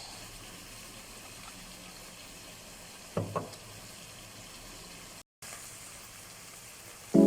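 Faint steady hiss of food cooking on the stove, with two quick knocks a little past three seconds in.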